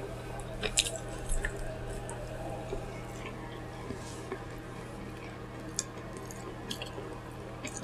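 A person eating: a few faint, scattered wet clicks and squishes of chewing and lip smacking, over a low steady hum.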